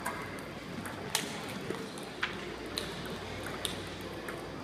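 Table tennis balls clicking off paddles and tables, sharp clicks about once a second from the nearest rally with fainter ones from other tables, over a steady low hum in a large hall.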